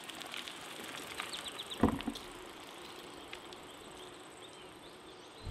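Quiet outdoor background with faint, short high chirps and a single brief dull thump about two seconds in.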